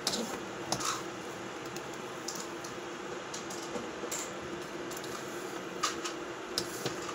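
Scattered light clicks and taps, about seven, over a steady low hum.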